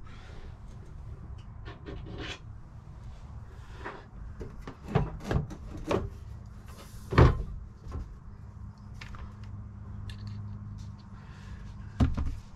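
Scattered knocks and light clatter as a perforated sheet-metal window screen cover is handled against a van's window frame, the loudest knock about seven seconds in and another near the end.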